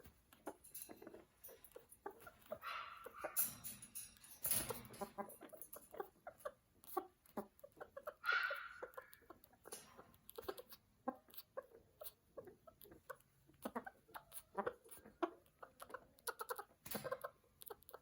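Amazon parrot giving two short calls, one about three seconds in and another about eight seconds in, among many small clicks and taps.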